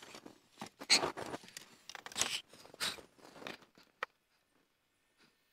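Footsteps and clothing rustle from a person moving about close to the microphone, as irregular scuffs and crunches, ending in a sharp click about four seconds in.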